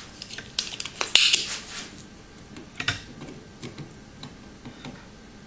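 Light clicks and small metal taps as a soldering iron and a thin metal rod are handled against a circuit board, with a brief scrape about a second in.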